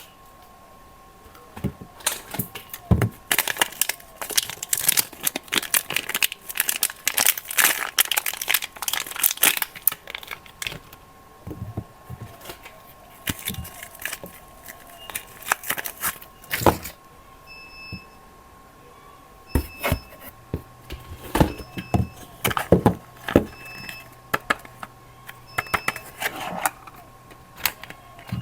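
Soap bars being unwrapped by hand: irregular bursts of wrapper crinkling and tearing, with scattered sharp clicks and taps, over a faint steady hum.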